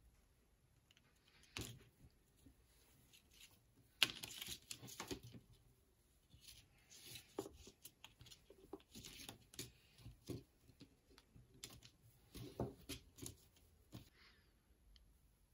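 Packaging being handled during an unboxing: scattered light clicks and knocks, with a sharp knock and a short rustle about four seconds in and another cluster of knocks near the end.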